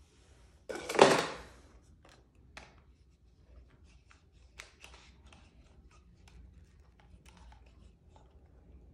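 Handling noise from a Canon EOS M50 mirrorless camera body and its lens as the lens is being fitted: a brief loud burst of handling noise about a second in, then scattered light clicks and taps of plastic and metal parts.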